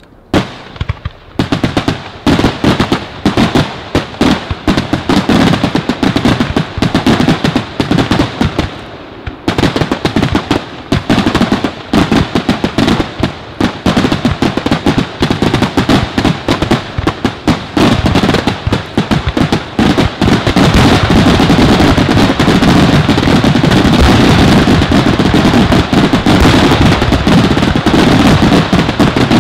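Fireworks display: aerial shells bursting in rapid, dense salvos of bangs. After a short lull near nine seconds the reports crowd together into an almost continuous barrage for the last third.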